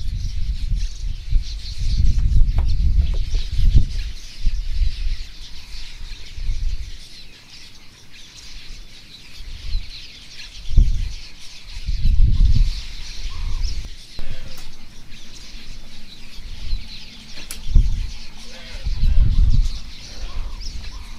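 Wind buffeting the microphone in irregular low gusts, over a steady high-pitched background of chirping.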